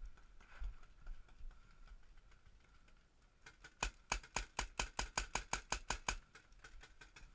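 Paintball marker firing a rapid string of shots, about six a second for over two seconds, starting about four seconds in.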